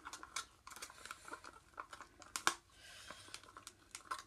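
Light clicks, ticks and scrapes of a stir stick knocking against a clear plastic cup as epoxy resin is stirred, with the crinkle of a gloved hand gripping the cup. One louder click comes about two and a half seconds in, followed by a short stretch of soft scraping.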